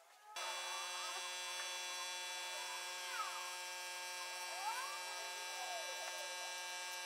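A steady electrical hum and whine made of many constant high and low tones, which cuts in abruptly a moment after the start.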